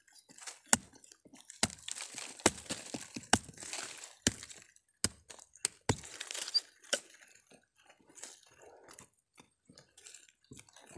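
Machete blade chopping into packed earth around a tree's base: a sharp strike about once a second for the first seven seconds, with soil scraping and crumbling between strikes. Then come softer rustles of soil and dry leaves as loose earth is cleared by hand.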